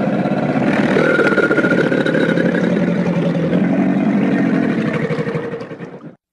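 Creature sound effect for a galloping crocodile: one continuous rough, rattling growl lasting about six seconds, fading out and stopping near the end.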